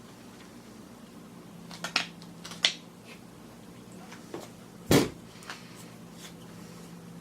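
A few short clicks and scrapes of a knife worked between a loudspeaker driver's plastic frame and metal basket, breaking through old gooey foam glue, with one louder knock about five seconds in. A steady low hum sits underneath.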